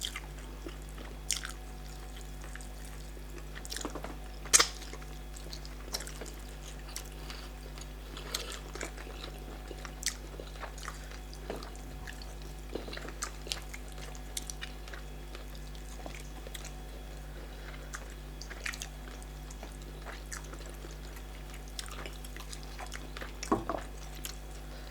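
Close-up eating sounds of starch fufu with bitter leaf black soup: chewing with scattered short mouth clicks and smacks, one louder about four and a half seconds in, over a steady low hum.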